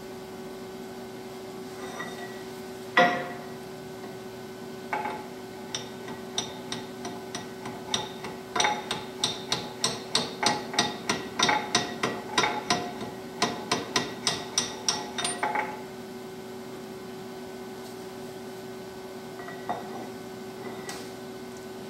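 Metal-on-metal hammering on tooling set into a Kubota engine block's balancer shaft bore. A few single heavy blows come first, then a run of quick strikes, about three a second, for some ten seconds. A steady hum runs underneath.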